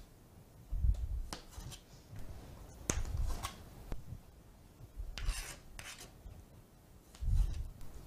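Chef's knife slicing cherry tomatoes in half on a plastic cutting board. Each cut is a short scraping stroke ending in a low knock of the blade on the board, about every two seconds.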